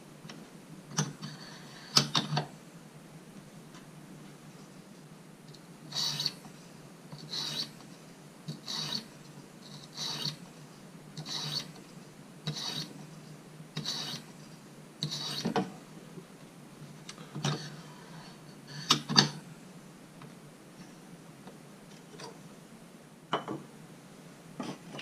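A medium-coarse sharpening stone drawn along the edge of a Schrade pocket knife held in a guided sharpener, rasping in short, even strokes about one every 1.3 seconds, with a few louder, sharper scrapes or knocks around the start and about two-thirds through.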